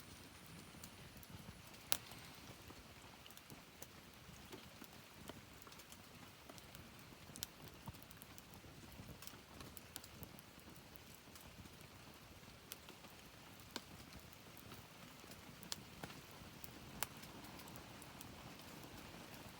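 Wood fire crackling: scattered sharp pops and snaps at irregular intervals over a faint steady hiss, the loudest pop about two seconds in.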